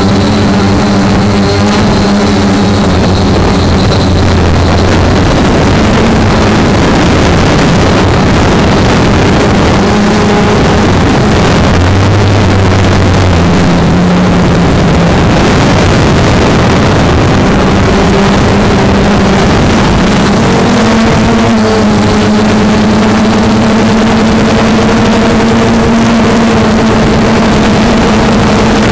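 Quadcopter drone's electric motors and propellers running close to the onboard microphone as it lifts off and climbs: a loud hum whose pitch wanders with the throttle, then settles into a steadier, slightly higher hum for the last several seconds.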